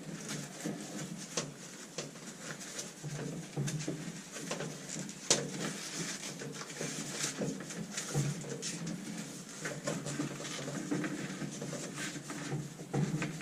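Irregular small clicks and rustling of wires being handled and zip ties being fastened.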